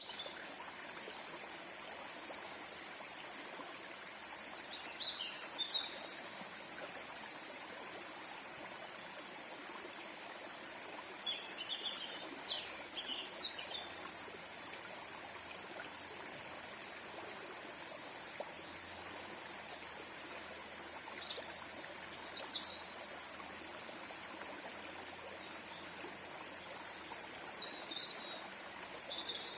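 A small stream flowing steadily, with a songbird breaking in a few times with short high phrases of song.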